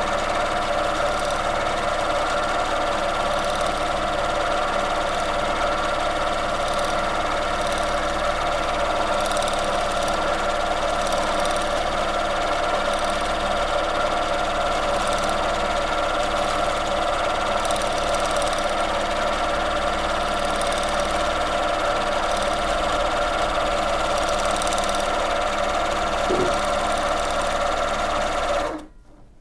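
Sewing machine running steadily while free-motion quilting, its needle stitching through a quilt; it stops suddenly near the end.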